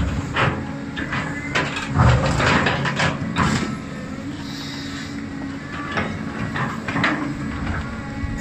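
Cat 320D excavator's diesel engine running under load while its steel bucket scrapes, grinds and knocks through dry, stony soil. The scraping and knocks come thick in the first few seconds, then ease to a steadier engine and hydraulic sound with occasional knocks.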